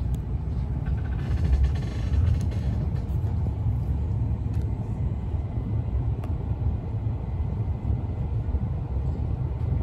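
Passenger train running on its rails, heard from inside the carriage: a steady low rumble, with a louder hissing rattle about one to three seconds in and a few faint clicks.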